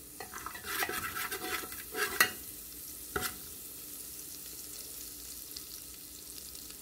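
Chopped garlic sizzling in oil in a metal pressure cooker, with a metal spoon scraping and clinking against the pot a few times over the first three seconds, then a steady sizzle.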